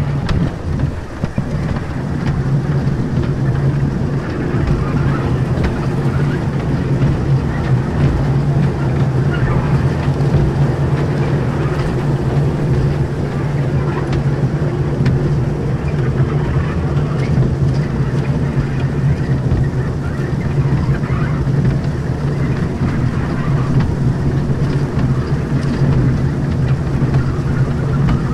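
Kiddie ride train running steadily along its narrow-gauge track, its drive giving off a constant low drone over a rumble from the running gear.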